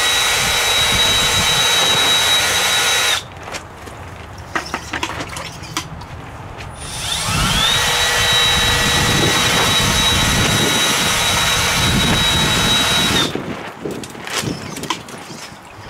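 Spin-It-Off magnet tool's small electric motor running with a steady high whine, spinning its magnetic rod so the magnetite tumbles end over end and lets go of the gold. The whine cuts off about three seconds in, and a few light clicks and knocks follow. About seven seconds in it spins up again with a rising whine, then runs steady until it stops about thirteen seconds in.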